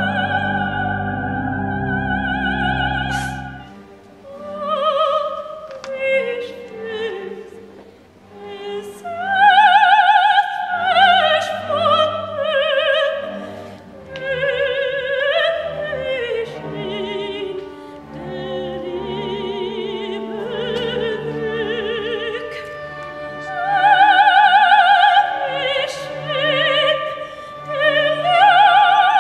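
Operatic soprano singing with a wide vibrato, climbing to loud high notes several times. For the first four seconds or so she is accompanied by sustained pipe organ chords, which then stop; the rest is a lighter accompaniment from a small orchestra with strings.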